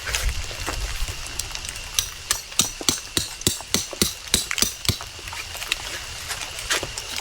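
A series of sharp taps or knocks, scattered at first and then a quicker run of about three a second in the middle, over a faint steady high-pitched tone.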